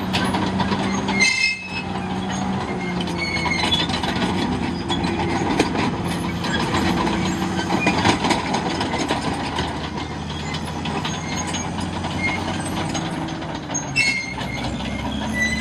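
Caterpillar D6T LGP crawler dozer's diesel engine running steadily while its steel tracks clank and squeal, with short high squeals and clicks scattered throughout.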